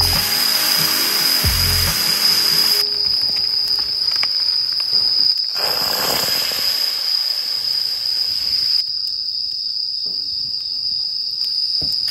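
Crickets chirping steadily in a continuous high trill. A loud broad hiss comes in twice, for the first three seconds and again for about three seconds in the middle.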